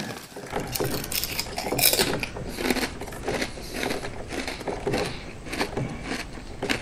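Potato chip bag crinkling and rustling, with irregular crackles and crunches.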